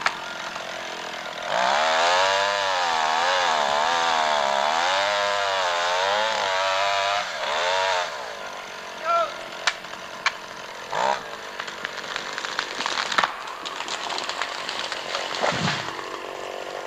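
Two-stroke chainsaw cutting into a standing tree trunk. About a second and a half in it goes to full throttle, its pitch wavering up and down as it works in the cut, then about 8 s in it drops back to a lower idle, with a few sharp knocks after that.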